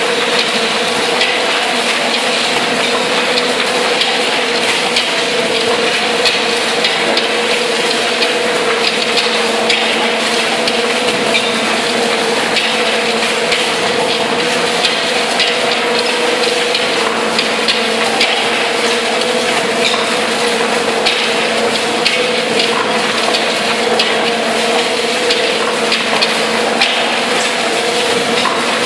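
Tunnel boring machine cutterhead turning as it breaks through the tunnel wall. A steady machine hum runs under continuous crackling and grinding of rock and concrete against the cutters.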